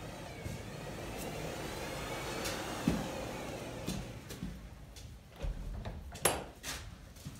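Glass folding-door panels being pulled along their track, a steady rolling rumble with occasional knocks as the panels fold and swing. About six seconds in comes a sharp, loud click, followed by a few lighter clicks.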